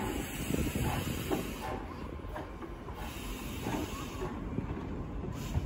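D51 class steam locomotive No. 146 hissing steadily as it moves off slowly, with a few softer swells in the hiss.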